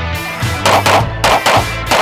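Music with a steady bass line and four sharp hits in quick succession, about a third of a second apart, starting just over half a second in.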